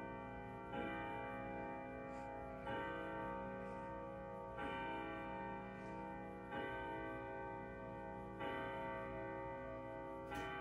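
Grandfather clock striking the hour: six slow, evenly spaced strokes on the same deep, bell-like tone, about two seconds apart, each ringing on into the next.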